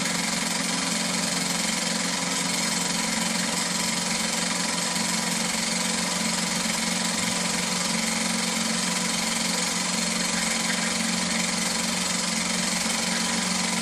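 Small Meccano-style toy steam engines (Mamod Mec 1 and SB3 and a Heinemeier vertical-boiler engine) running together on their spirit-fired boilers: a steady mechanical run, an even hiss over a low, constant hum.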